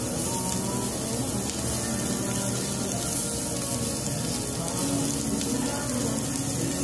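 Lamb sizzling steadily on a domed cast-iron Jingisukan grill heated by charcoal, with background music playing over it.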